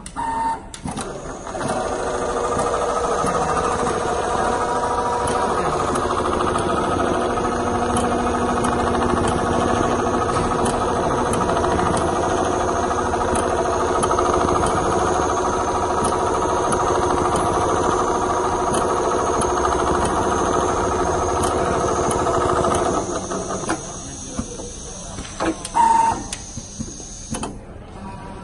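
Computer-controlled pattern sewing machine stitching a hexagon quilting pattern into leather, its drive and needle running steadily, then dropping away about 23 seconds in. A short beep sounds near the start and another a few seconds before the end.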